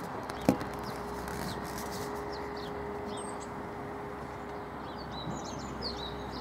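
Small birds chirping in short, high calls over steady outdoor background noise. A single click about half a second in is followed by a steady hum.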